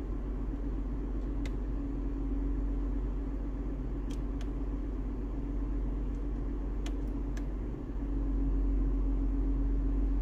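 Steady low rumble of a running vehicle with a faint steady hum, and a few light clicks scattered through; the rumble grows louder near the end.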